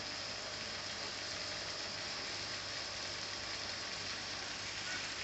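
Steady hiss with a low hum from the aquarium equipment of a shrimp farm's tank room: air pumps and filters running.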